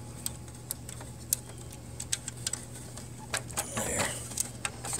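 Light plastic clicks and taps as fingers work a small wire connector into its socket on a laser printer's metal chassis: about ten irregular ticks, over a steady low hum.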